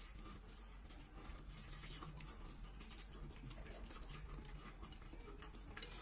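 Faint crackling and clicking of boiled eggshells being cracked and picked off by fingers, many small irregular clicks.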